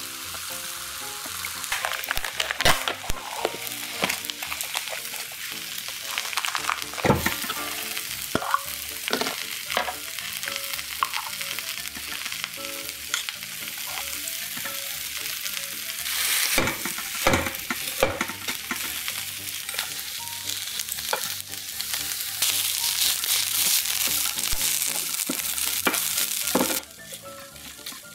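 Pieces of sea eel frying and sizzling in a pan with a steady hiss, broken by scattered sharp clicks. The sizzle drops away suddenly near the end.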